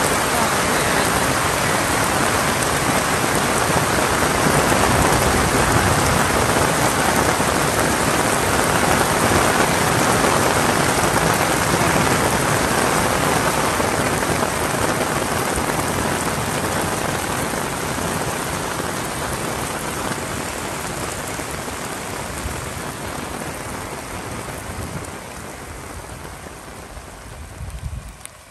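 Heavy rain falling: a dense, even hiss that slowly fades over the second half and drops away at the very end.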